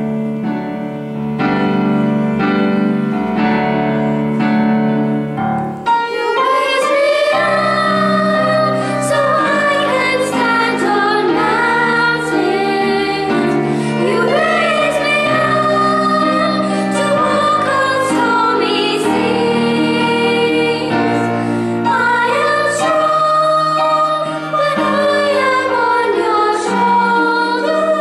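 Girls singing a song with violin accompaniment. The first six seconds are an instrumental introduction, and the voices come in about six seconds in.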